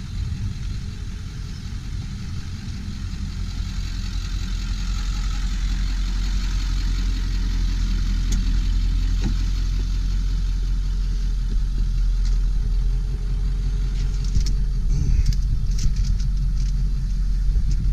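Ford 7.3-litre Power Stroke V8 turbo diesel idling steadily, growing gradually louder over the first several seconds. A few short clicks come near the end.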